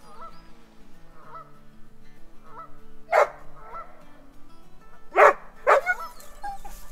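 Canada geese honking repeatedly on the lake, a string of calls with three much louder honks, one about three seconds in and two close together near the end.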